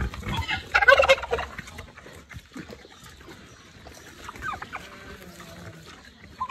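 A farm animal's call: a loud, rapid, stuttering burst about a second in, lasting under a second, with fainter animal noises after it.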